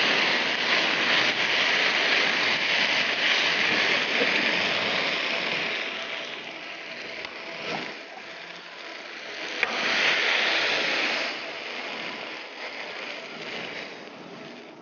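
Beef strips and spaghetti sizzling in a hot pan as they are tossed with a silicone spatula. The sizzle is loud for about six seconds, drops, flares again briefly around ten seconds in, then dies down, with a couple of light knocks along the way.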